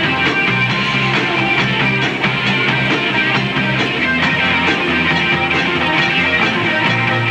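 Live rock band playing: electric guitar over a steady drum beat. The recording's gain is set too hot, so the whole mix is distorted.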